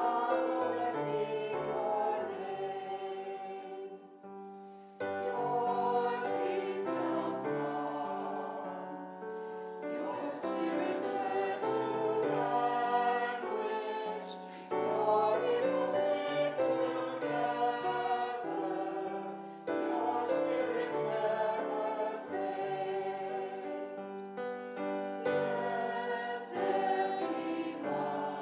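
Church choir and congregation singing a hymn together in sustained phrases, with a brief pause between lines about four seconds in.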